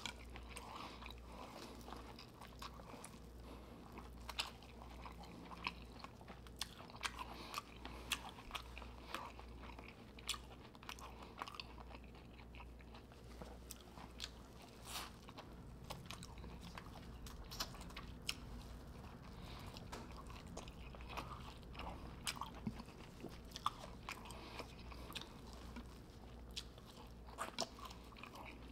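Close-miked eating of a sauce-covered seafood boil: wet chewing and biting with many irregular sharp clicks and crunches.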